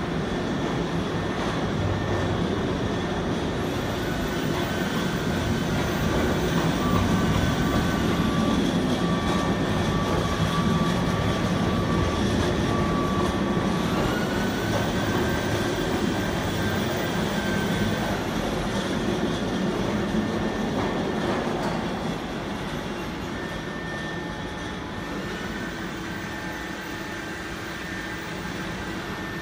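Desktop CNC routers running in a workshop: a steady mechanical rumble and hiss. Over it, high spindle whines come in three times, rising as they start and falling away as they stop, along with steady tones that start and stop.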